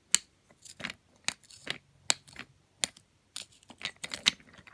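Sharp, irregular clicks and taps of a Thomas Wooden Railway engine and tender being handled, their magnetic couplings clacking together and pulling apart. The magnet is very weak, which the owner puts down to rust on the magnets.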